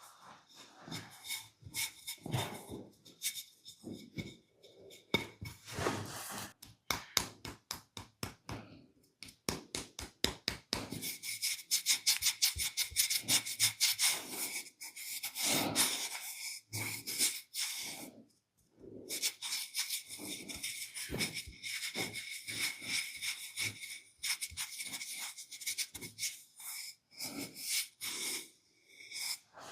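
Hands massaging bare skin and hair, a quick rhythmic series of rubbing and patting strokes, several a second, busiest midway through with brief pauses.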